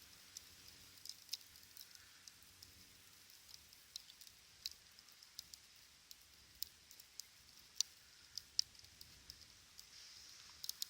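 Small campfire crackling faintly: irregular sharp pops and snaps over a steady soft hiss.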